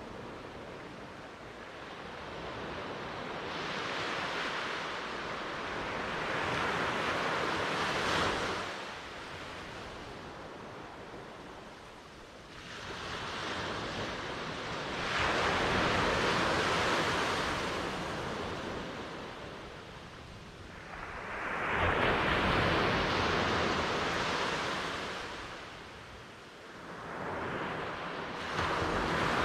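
Sea waves breaking and washing in: surf that swells and fades in four surges, about seven seconds apart.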